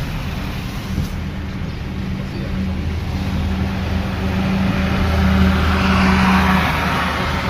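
Car driving on a wet road, heard from inside the cabin: a steady low engine hum under the hiss of tyres on water. The hiss swells about two thirds of the way in, then eases.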